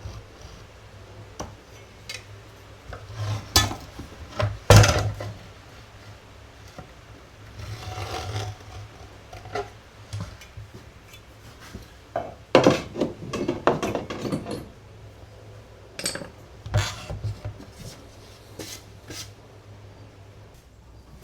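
Irregular clinks, knocks and clatter of metal and wooden parts of an antique coffee grinder being handled and set down. The loudest knocks come about five seconds in and again about twelve seconds in.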